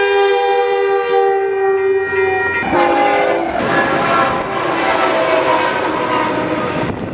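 A locomotive's multi-chime air horn sounding one long held chord, which drops in pitch a little under three seconds in and carries on over the rushing, clattering noise of the train passing on the rails.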